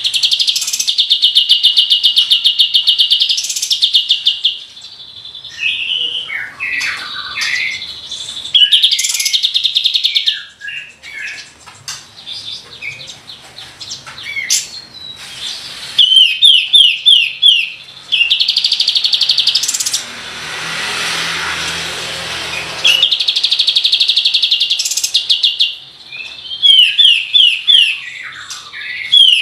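A kapas tembak bird singing in long, rapid machine-gun trills ("roll tembakan"), broken by shorter chirps and whistled phrases. A rustling hiss sounds for a few seconds past the middle.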